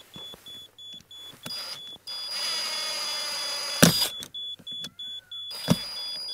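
A cordless drill-driver runs twice, driving screws into wooden facade battens to bring them level: once for about two seconds starting about two seconds in, ending in a sharp knock, then again from near the end, with another knock. Throughout, a laser level receiver gives a rapid, even beeping, and a steady high tone sounds at times along with it.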